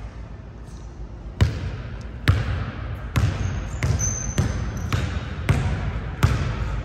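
Basketball being dribbled on a gym court, a sharp bounce about every 0.8 s, about seven in all, each with a short echo. A high sneaker squeak comes near the middle.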